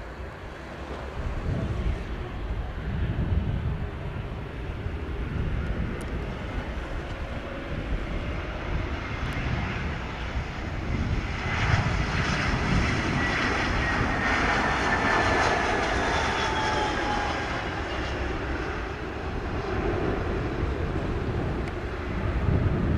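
Spirit Airlines Airbus A320-family jet's engines on final approach, a steady low rumble. About halfway through it touches down, and the sound turns into a louder rush with an engine whine falling in pitch as it rolls out.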